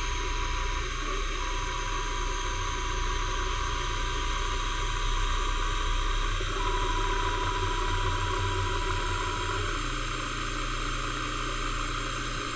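Milling machine running without cutting while its head travels up the column: a steady mechanical hum with a faint thin whine that stops about ten seconds in.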